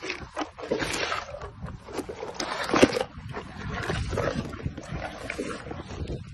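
Hippopotamus chewing a mouthful of bell peppers: irregular, wet crunching and smacking.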